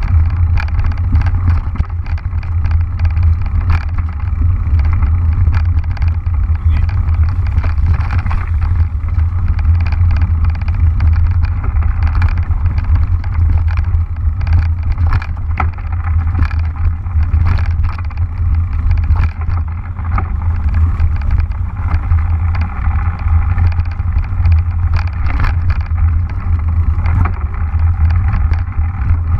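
Mountain bike riding fast along a leaf-covered forest trail. The tyres roll over dry leaves and dirt with frequent small clicks and rattles from the bike, over a steady low rumble of wind and vibration on the mounted camera's microphone.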